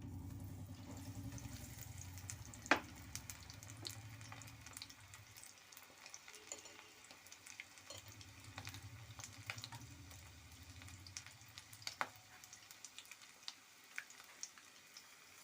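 Batter-coated chicken wings deep-frying in hot refined oil: a steady sizzle full of small crackles, with two louder clicks, about three seconds in and about twelve seconds in.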